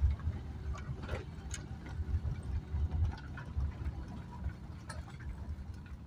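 Cabin sound of a Maruti Suzuki Alto 800 driving slowly over a rough dirt lane: a low, uneven engine and road rumble, with scattered light clicks and knocks from the car jolting over the bumps.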